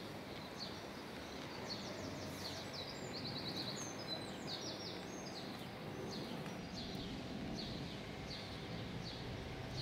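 Small songbirds chirping and trilling in quick runs of short high notes, busiest in the first half, over a steady low background hum.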